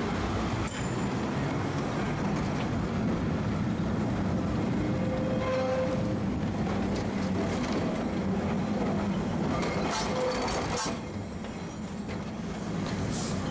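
Vintage electric tram running along street track, heard from on board: a steady rumble of wheels and running gear, with a few short clicks and faint brief squeals from the rails.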